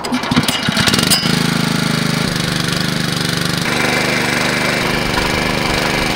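Walk-behind trencher's small engine running under load as its digging chain cuts a narrow trench in the soil. It starts with a clatter of irregular knocks in the first second, then runs steadily, its pitch shifting slightly a couple of times as the load changes.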